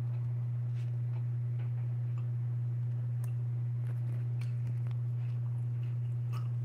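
A steady low hum with faint scattered clicks and taps, the sounds of a phone being handled and picked up.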